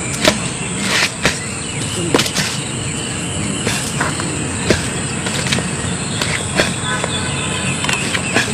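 Steady high-pitched insect drone over outdoor hiss, with irregular sharp slaps or knocks about once a second.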